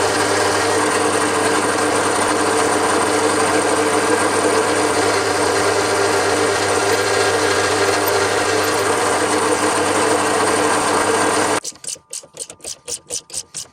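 BF25 milling machine running steadily with a constant hum, cutting off abruptly near the end. A rapid regular ticking, about five a second, follows.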